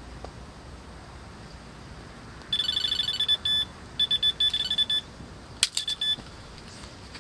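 Electronic carp bite alarm sounding a fast string of high-pitched bleeps for about two and a half seconds, breaking off briefly, then a sharp knock and a few more bleeps: a fish has taken the bait and is pulling line through the alarm.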